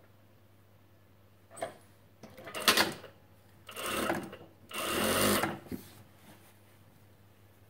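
Industrial single-needle lockstitch sewing machine stitching a side seam in short runs: a brief blip, then three runs of under a second each, between about two and six seconds in.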